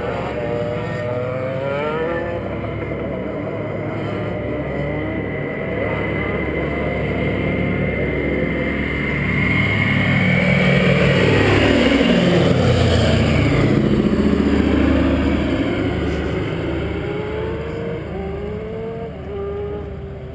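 Douglas DC-3's twin radial piston engines droning as the aircraft passes low overhead: the sound builds to its loudest about twelve seconds in, the pitch drops as it goes by, and it fades away.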